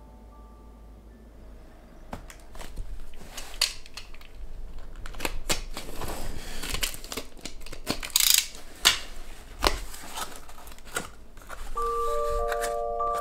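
Utility knife slicing through packing tape on a cardboard box, with scraping, tape tearing and cardboard rustling as the box is opened; the loudest sharp rips come about eight and nine seconds in. A few chime-like music notes begin near the end.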